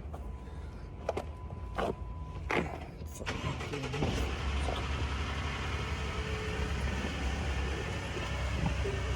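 A few sharp clicks and knocks, then about three seconds in a Chevrolet Camaro's engine comes on and runs steadily at idle.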